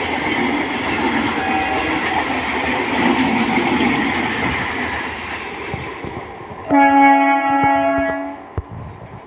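Electric suburban local trains running by, their rumbling rail noise slowly fading, then one loud train horn blast lasting under two seconds about seven seconds in.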